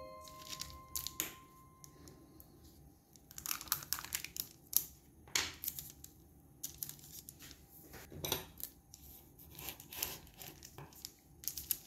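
Kitchen handling noises: irregular runs of short crinkling, tearing and scraping sounds with a few sharp taps, the sharpest about five seconds in.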